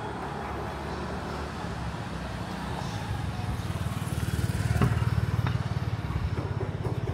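Motor vehicle engine running and passing close by, its low pulsing rumble building to its loudest about five seconds in, over steady street traffic.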